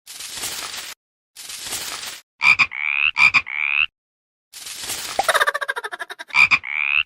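A string of edited sound effects: bursts of hiss that cut off abruptly with silence between them, then short rising pitched calls, each led by a click, and a quick run of clicks.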